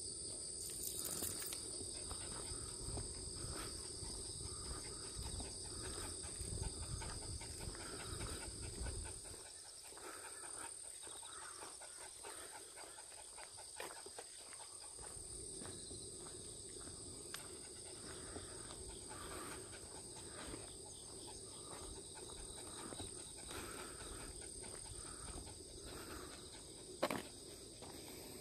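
Steady summer insect chorus, two high continuous tones that do not let up. A low rumble lies under it for roughly the first nine seconds and then drops away abruptly, and there is a single sharp click near the end.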